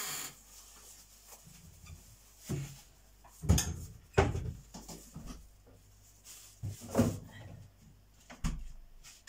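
Kitchen clatter: about five separate knocks and clunks as things are handled and a door or cupboard is shut. The loudest come about three and a half, four and seven seconds in.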